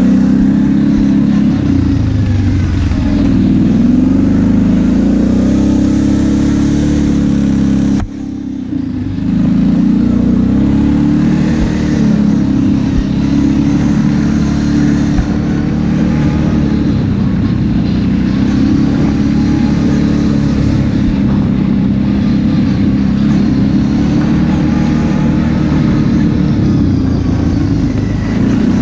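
ATV engine running under way, its pitch rising and falling with the throttle. About eight seconds in it drops off sharply for a moment, then picks back up.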